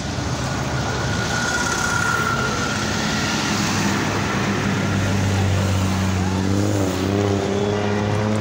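Buses and cars of a convoy driving past close by, their engines and tyres running. A steady low engine hum strengthens in the second half as a coach passes.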